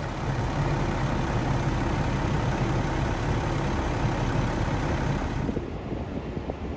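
Diesel engine of a JR Kyushu KiHa 47 railcar idling at a standstill, a steady low rumble. The higher hiss drops away about five and a half seconds in.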